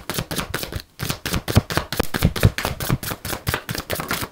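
A deck of cards being shuffled by hand, one packet dropped onto another: a fast run of soft slaps at about eight a second, with a brief pause about a second in.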